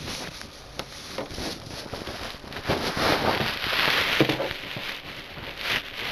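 Crackly rustling with many small clicks from handling, as things are moved about and the camera is handled; it swells to its loudest about three to four and a half seconds in.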